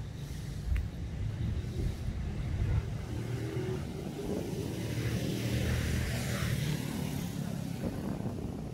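Road traffic: a steady low rumble, with a vehicle going by near the middle.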